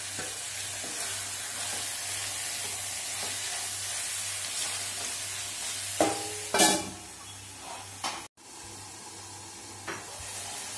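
Chicken pieces sizzling in oil in a nonstick kadai, a steady hiss. About six seconds in come a few sharp clanks as a stainless-steel lid is set on the pan, and after that the sizzling is quieter under the lid.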